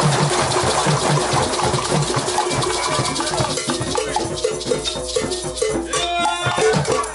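Group percussion jam: hand drums beaten and maracas shaken together in a fast, steady rhythm, with pitched notes joining in about halfway through.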